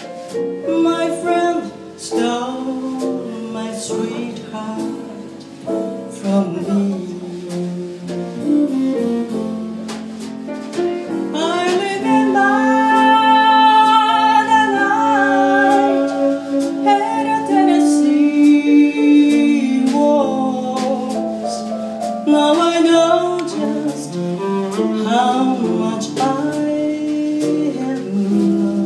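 A female jazz vocalist singing a waltz ballad with a live jazz quintet of saxophone, piano, upright bass and drums, with long held notes in the middle.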